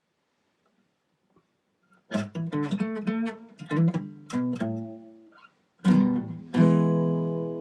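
Guitar played after about two seconds of quiet: a run of plucked notes and short chords, then a strummed chord left to ring out near the end.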